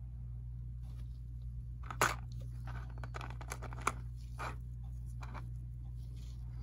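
Thin clear plastic blister tray crinkling and clicking as tiny figures are handled and picked out of it, with a sharp click about two seconds in and another near four seconds. A steady low hum sits underneath.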